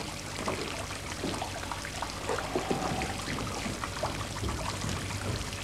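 Indoor ornamental fountain splashing and trickling into its basin, a steady patter of falling water over a low steady hum.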